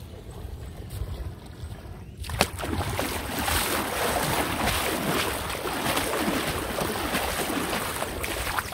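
Water splashing and sloshing as someone wades across a river, starting suddenly about two seconds in after a quieter stretch of flowing water.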